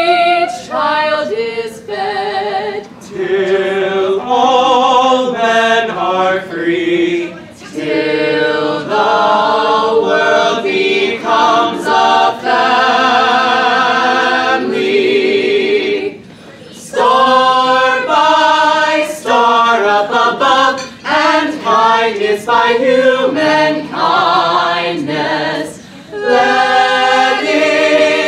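Small mixed a cappella vocal group, men and women, singing a Christmas song in close harmony without accompaniment, with a brief break about sixteen seconds in.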